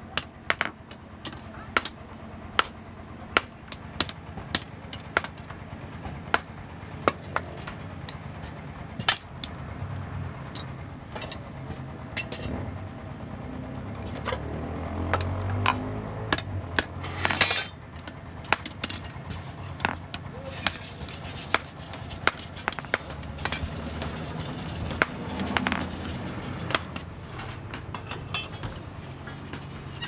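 Hammer blows on a red-hot iron ring lying on a steel anvil while it is forged into a door-knob ring: irregular sharp strikes, each with a high metallic ring, coming quickly at first and more scattered later.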